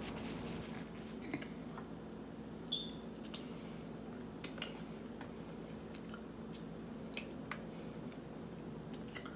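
Close-up eating sounds: soft, wet chewing and lip smacks with scattered small clicks as tender pork chop meat is gnawed off the bone by hand, over a low steady hum.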